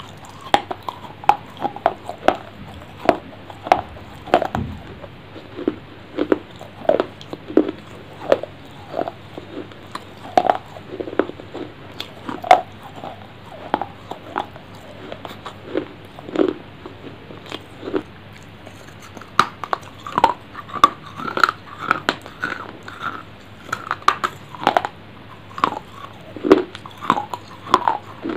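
Close-miked eating: someone biting and chewing a crunchy food, a steady run of sharp crunches and wet mouth clicks, one or two a second.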